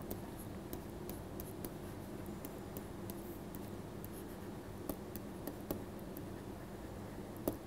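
Stylus tapping and scratching on a tablet screen during handwriting: a scatter of faint short clicks, with a sharper tap near the end, over a steady low hum.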